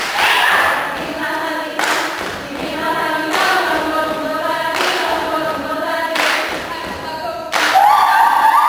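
Saman dance troupe chanting in unison, the melody moving in steps and swelling louder near the end, punctuated every second or two by sharp, loud hand claps and body slaps from the whole row together.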